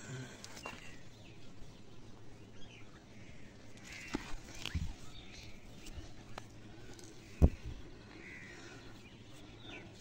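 Birds calling faintly here and there, with a few soft knocks and one sharper thump about seven and a half seconds in.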